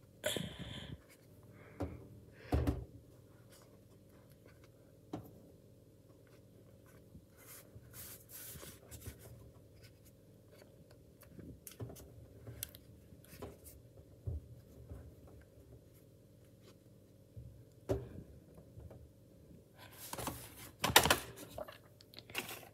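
A hand squeezing and rubbing a clear glove stuffed with water beads (Orbeez) on a metal surface, giving scattered soft squelches, rubs and small clicks. There is a louder burst of rubbing near the end, over a faint steady hum.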